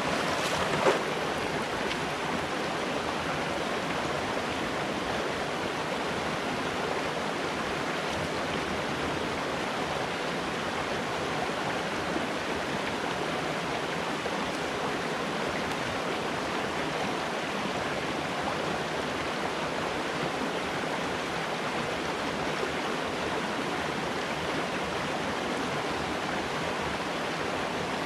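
Small rocky brook running over stones and a low cascade, a steady even splashing of water. A single brief knock about a second in.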